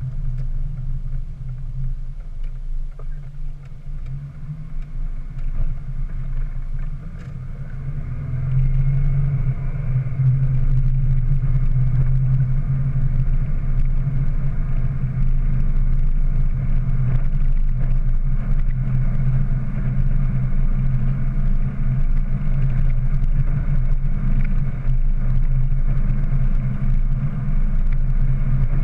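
Ford Ranger pickup being driven, heard from inside the cab: a steady low engine and road drone that grows louder about eight seconds in, then holds.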